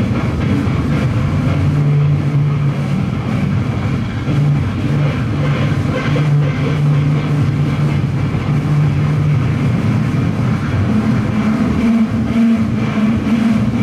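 Live drums and distorted electric guitar playing a loud, dense, droning experimental rock passage. A low held note rises to a higher held note about eleven seconds in, under a wash of cymbals.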